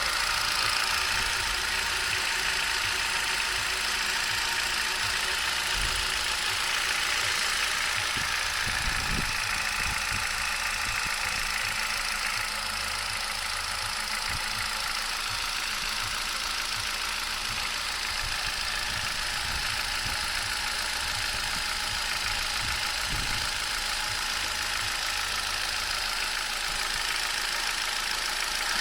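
Hyundai i20's 1.2-litre Kappa four-cylinder petrol engine idling steadily, with a constant hiss-heavy running sound: the engine noise the owner noticed after 45,000 km.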